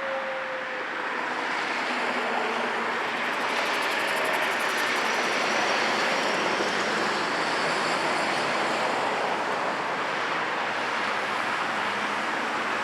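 The last of the ASC T-128 siren's falling wind-down tone fades out within the first second, leaving a steady rushing background noise with no clear tone.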